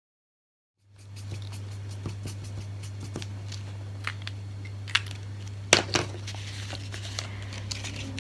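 Quick scratches and taps of a colouring pen making loose feather marks on a paper bird's wings, the loudest a little past halfway. A steady low hum sets in about a second in and runs underneath.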